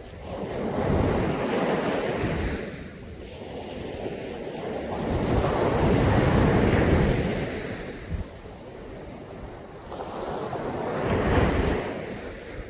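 Caribbean Sea waves breaking on a beach, with three surges of surf about five seconds apart, each building and washing back.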